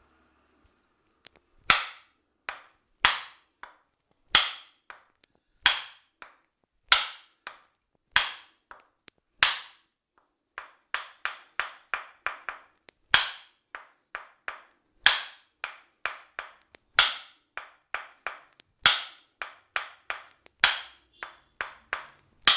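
Percussive massage strikes landing as sharp, slapping clap sounds. A loud strike comes about every second and a quarter with lighter taps between, and from about halfway the lighter strikes come in quicker runs between the loud ones.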